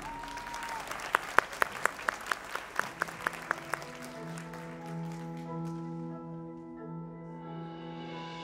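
Indoor drumline show music: a run of about a dozen sharp, evenly spaced strikes, about four a second, followed from about four seconds in by soft, sustained layered chords.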